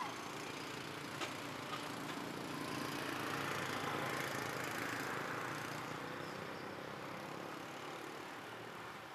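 Small motorbike engines passing on the road, the sound swelling to a peak about four seconds in and then fading away.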